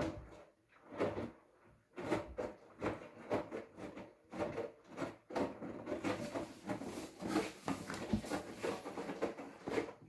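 Hoover washing machine drum turning during the prewash of a cottons 90 °C cycle, with wet laundry and water tumbling inside it in a quick, uneven run of thuds and knocks.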